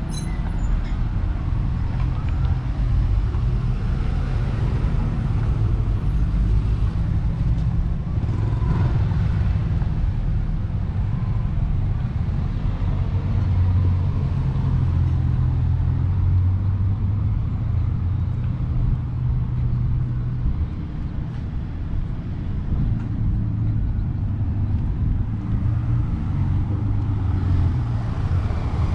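Street traffic: cars driving past on a paved street, with a heavy low rumble throughout. Near the end another vehicle comes closer and the sound grows.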